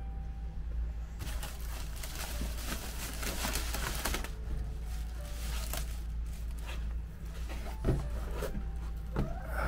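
Clear plastic wrap crinkling and crackling as it is pulled off a canvas print, for about three seconds starting a second in. Then quieter handling in a cardboard box, with a sharp knock near the end as the canvas is lifted out.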